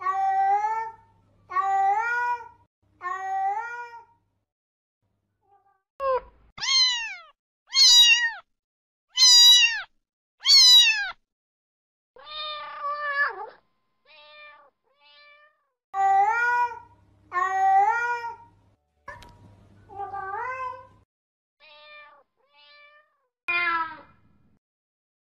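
Domestic cat meowing over and over, about fifteen separate meows with silent gaps between them. The middle run, about six to eleven seconds in, holds the loudest and highest meows, each rising then falling; the rest are softer, and a few are only short faint mews.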